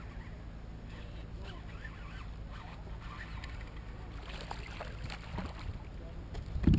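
A fish is reeled in to the side of a kayak, with faint reel clicks and light splashing under a steady low motor hum. A sharp thump near the end as the fish comes up against the kayak.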